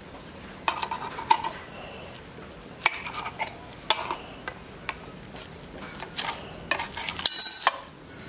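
Metal utensils clinking and knocking against cookware during cooking: a handful of separate ringing strikes, then a quick rattle of them near the end.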